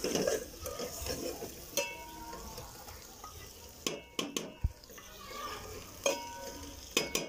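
A perforated steel ladle stirs and scrapes frying beef keema in a metal pot as it sizzles, with a few sharp knocks of the ladle against the pot.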